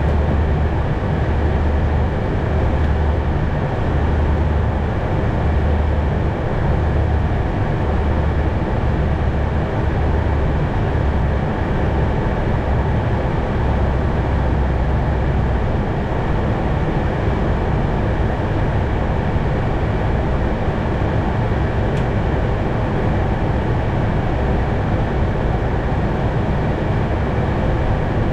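Steady rushing drone of airflow and engines on an Airbus A220's flight deck in flight on approach, with an uneven low throb through roughly the first half.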